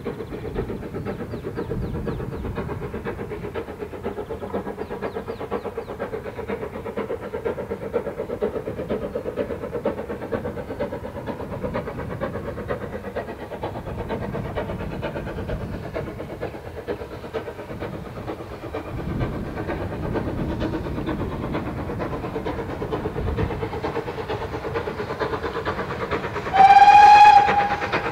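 GWR Small Prairie 2-6-2 tank steam locomotive No. 4555 steaming steadily towards the listener, then one short blast on its whistle, about a second long, near the end.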